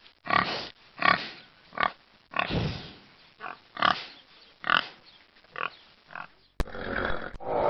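Hog grunting, about nine short separate grunts in a row. About six and a half seconds in, a click and then a steadier, continuous rough animal sound take over, the next effect, a horse grunting.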